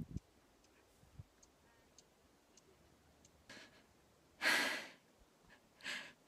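A woman breathing close to the microphone: a faint breath about three and a half seconds in, then a long deep sigh a second later, and a shorter breath near the end. A brief low rumble on the microphone at the very start.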